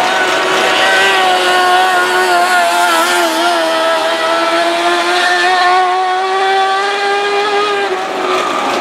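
Mini late model race cars running hard in a pack, their engines making a steady high-revving drone whose pitch wavers slightly and drifts slowly up as the cars circle.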